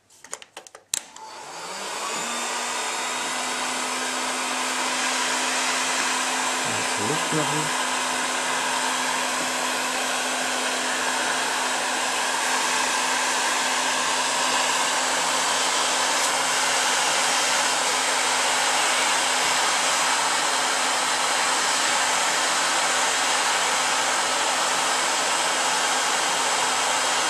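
A hot-air heat gun starts after a few clicks, its motor spinning up over about a second to a steady blowing hiss with a low hum. It is melting the shellac in a saxophone key cup so the pad can be glued in flat.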